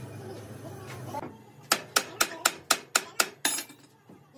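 A quick run of about eight sharp metallic knocks, roughly four a second, each with a short ring: metal struck or knocked against metal at a radial drill press. Before them, a low steady machine hum stops about a second in.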